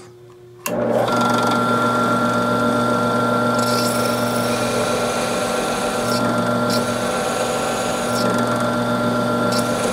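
Benchtop drill press starts up about a second in and runs steadily, with a mounted grinding stone in its chuck. The stone grinds inside a steel revolver rammer, smoothing a stepped drilled bore into a cone, with brief higher scraping now and then.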